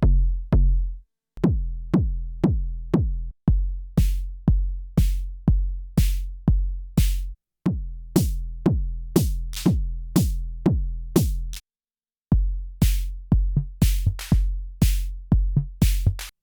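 Arturia DrumBrute Impact analog drum machine playing a beat as it is programmed: a boomy kick drum about twice a second, with sharper hissy hits joining about four seconds in. The pattern stops briefly a few times and restarts.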